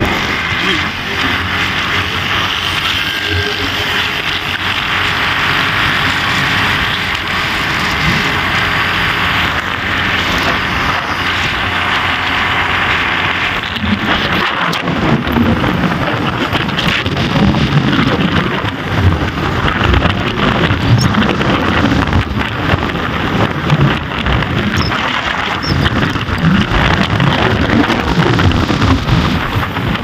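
Road and wind noise from a moving vehicle: a steady rush of wind on the microphone over the vehicle's running, with heavier, uneven low buffeting from about halfway through.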